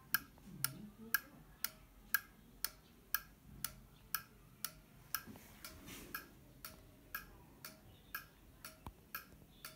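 Relay output of an FX3U-24MR PLC clicking on and off at a steady two clicks a second, evenly spaced. It is pulsing in place of a Hall switch to give the NVUM CNC controller its spindle speed signal.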